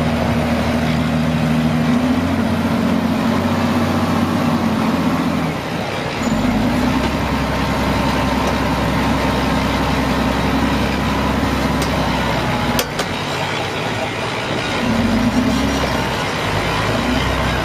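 Brick-plant clay-handling machinery running steadily: a feeder and belt conveyor carrying crushed clay. A low hum shifts in pitch a few times, and there is a single sharp knock about two-thirds of the way through.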